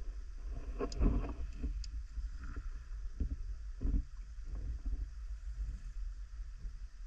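Underwater noise from a camera in a waterproof housing carried by a swimming freediver: a steady low rumble with irregular swishes and knocks of water moving past. There are two sharp clicks about a second in.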